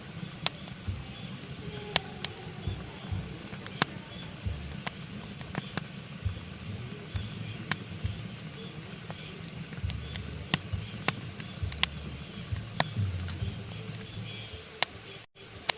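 Pine logs burning in a fireplace, crackling with frequent sharp, irregular pops over a low rumble and hiss of the flames. The sound cuts out for a moment near the end.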